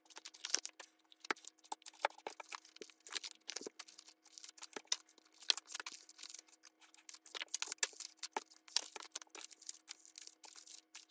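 Faint, frequent irregular clicks and rustles of paper savings-challenge envelopes and banknotes being handled and sorted, over a faint steady hum.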